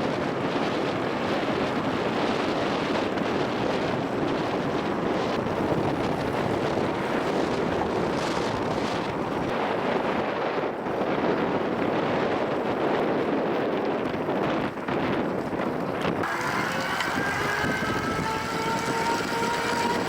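Wind rushing over the microphone while riding an electric bike, a steady loud noise. About three-quarters of the way through, a whine joins and rises in pitch.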